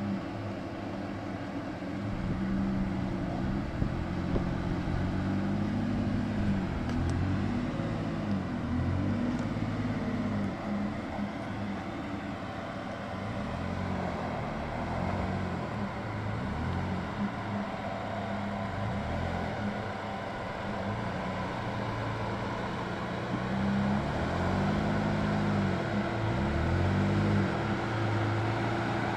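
Nissan Frontier PRO-4X's V6 engine under way off road, its revs rising and falling over and over, with a steady tone running underneath.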